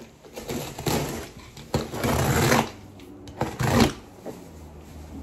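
Box cutter slicing through a cardboard shipping box and the cardboard being pulled open: three rasping cuts and rips, the middle one the longest, with light handling of the box between them.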